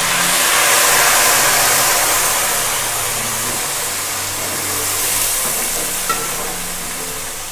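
Water poured into hot oil with dark-browned fried onions in a kadai, sizzling loudly as it boils up. The hiss peaks about a second in, then slowly dies down while a slotted spoon stirs it.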